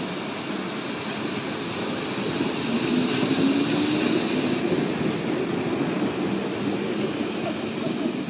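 Steady noise of a passenger train running along the track, with a low tone that rises briefly about three seconds in.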